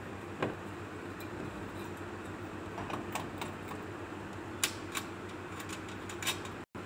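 Scattered light metallic clicks and taps from the metal parts of a wall lamp being handled: a screwdriver on the screws of the steel mounting plate, then the lamp's metal base being fitted against the plate. Beneath them runs a steady room hum.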